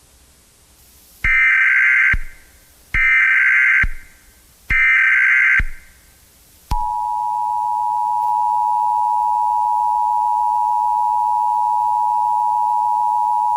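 Emergency Alert System tones: three short data bursts of the SAME header, each about a second long and evenly spaced, then, about halfway through, the steady two-tone EAS attention signal that announces an emergency message is about to be read.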